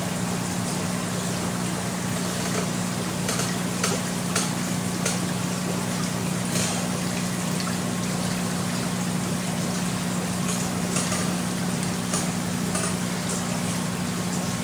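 Steady low hum and watery hiss of a fry tank's aeration. Bubbles pop in a scattering of small clicks.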